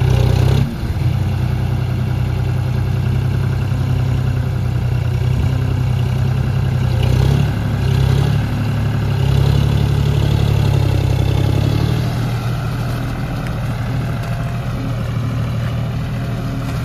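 Tractor diesel engine running steadily, its note shifting up and down a little a few times and easing off somewhat in the last few seconds.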